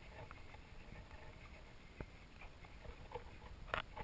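Two dogs, a Shetland sheepdog and a Rhodesian ridgeback, scuffling at play on carpet: faint soft shuffling and body-contact noises, with a faint click about two seconds in and a sharper click just before the end.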